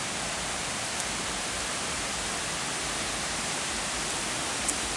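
Steady rushing of a waterfall, an even hiss of falling water, with two faint ticks, one about a second in and one near the end.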